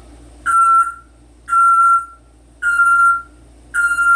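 African grey parrot giving four short, steady-pitched whistled notes, evenly spaced about a second apart.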